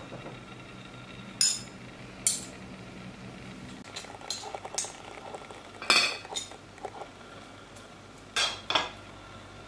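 Metal fork and table knife clicking and scraping against a wooden cutting board while mashing and cutting a crumbly white lump of food, in about nine short, sharp, irregular knocks.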